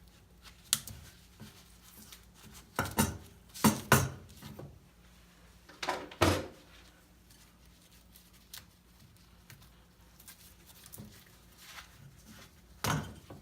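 Sharp clicks and knocks of small hard objects being handled and set down, in clusters about three, four and six seconds in and once more near the end.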